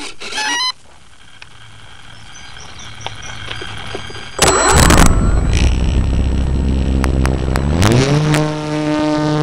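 Electric motor and propeller of an E-flite Apprentice RC trainer plane, heard from a camera on its fuselage: quiet at first, then suddenly loud with a rush of prop wash about four and a half seconds in as the throttle opens for takeoff. Near the end the motor's whine rises in pitch and holds steady at full power.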